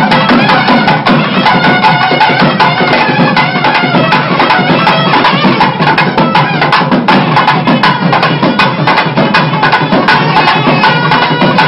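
Traditional music played steadily and loudly, a reed-like wind instrument carrying the melody over percussion.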